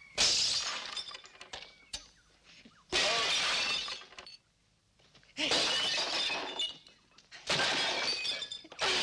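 Four loud crashes of things smashing and breaking, about every two and a half seconds, each dying away over about a second: fight sound effects in a film.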